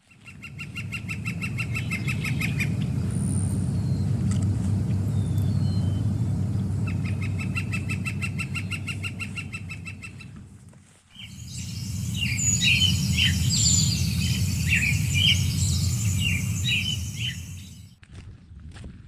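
Wild birds singing over a steady low rushing noise. A fast, evenly repeated trill comes twice in the first half. After a brief dip about eleven seconds in, a busier mix of varied chirps and whistles sounds over a brighter hiss.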